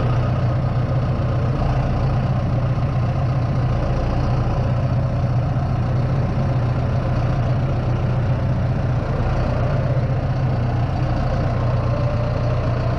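Engine of the machine handling logs at a sawmill, running steadily at low speed with an even, unbroken hum.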